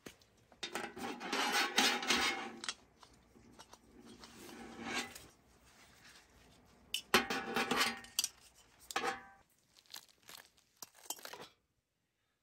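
Handling clatter of a small metal gas canister and its hose: clinks and rattles in two bursts, then a few light clicks near the end.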